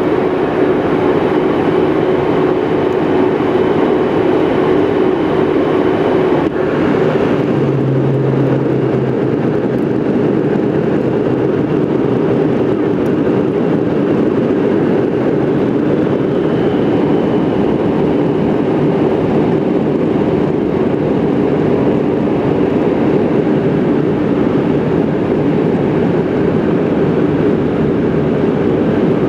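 Steady cabin noise of a jet airliner in flight: rushing airflow and engine drone. A steady hum in it changes about six and a half seconds in.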